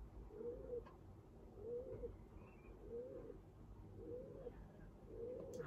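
A dove cooing faintly and steadily: five identical short coos, each rising and falling, about one a second.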